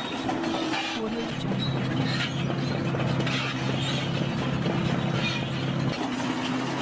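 Bulldozer's diesel engine running with scattered metal clanks; the engine note drops a little over a second in and shifts back near the end.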